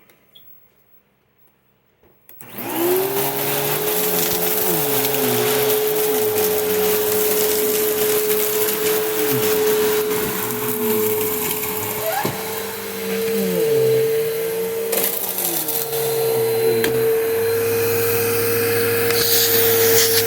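2003 Simplicity Symmetry upright vacuum switched on about two seconds in, its motor spinning up into a steady high whine. Beneath the whine, lower tones waver up and down as it runs, with a single sharp click about two-thirds of the way through.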